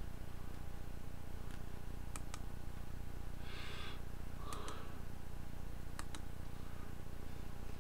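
A few sparse clicks at a computer, several coming in quick pairs, over a steady low hum, with a short soft hiss near the middle.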